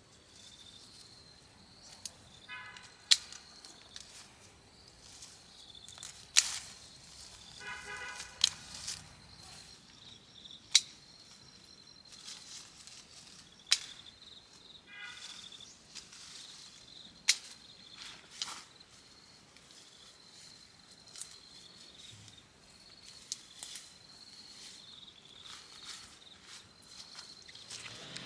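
Sharp single knocks, about seven in all, a few seconds apart, over a faint steady high-pitched hum.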